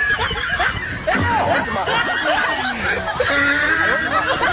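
People snickering and chuckling: laughter, most likely a laugh track laid over the clip.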